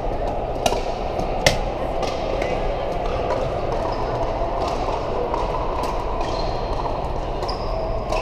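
Steady background chatter of a busy pickleball hall, with sharp pocks of paddles hitting plastic balls on nearby courts, the loudest about a second and a half in.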